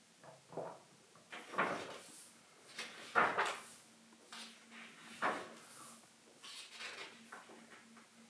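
Pages of a book being turned by hand: a series of paper swishes and rustles, the loudest about three seconds in.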